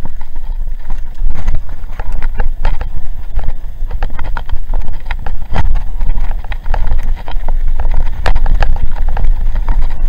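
Mountain bike rolling fast down a loose gravel road, with constant rattling and clatter from the bike and stones and heavy wind rumble on the bike-mounted camera's microphone.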